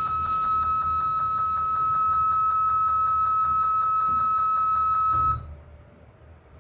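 Mitsubishi elevator's buzzer sounding one steady, high-pitched tone for about five seconds, then cutting off abruptly: the warning that sounds while the car forces its doors closed.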